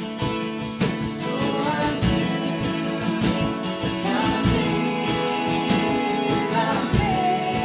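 Acoustic guitar strummed in a steady rhythm, accompanying a woman singing a slow melody.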